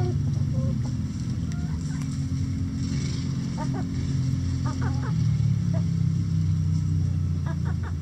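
Backyard hens clucking in short runs of quick notes, a few times, over a steady low hum that is the loudest thing throughout.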